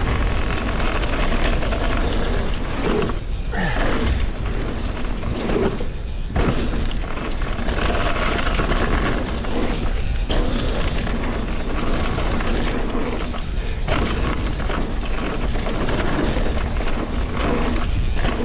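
Heavy wind rush and rumble on the microphone from riding a mountain bike down a trail at speed, dipping briefly a few times.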